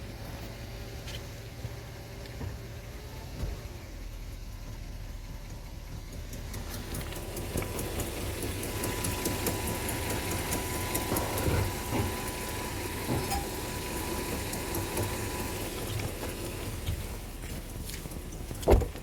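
Mercedes-Benz W124 500E's 5.0-litre V8 idling cold, with a repeated knocking tick over the steady engine hum and one louder knock near the end. The knock comes only at idle on a cold engine, and the owner suspects the torque converter, flexplate, or a rod or piston.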